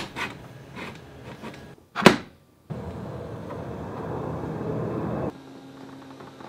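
Small metal clicks and handling sounds as a steering cable is fitted into the greased steering tube of a Honda outboard. A sharp metallic click about two seconds in is the loudest. A steady sliding noise follows for a couple of seconds as the cable is pushed in.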